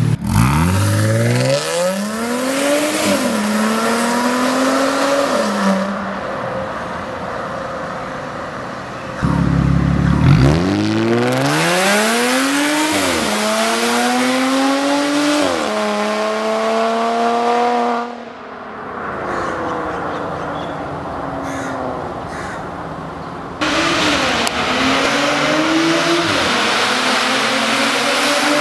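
Audi S5 with a Fi aftermarket exhaust, loud, pulling hard through the gears in several runs. The engine note climbs and drops at each upshift, backs off to a quieter, falling note about two-thirds of the way in, then pulls hard again near the end.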